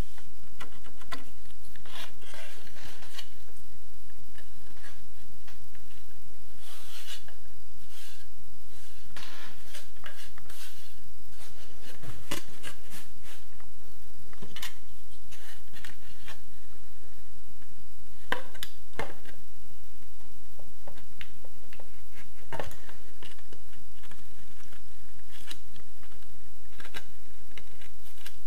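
Hand tools and a wall panel being handled on a cluttered work table: scattered clicks, taps and light metal clatter as tools are moved and picked up, over a steady low hum.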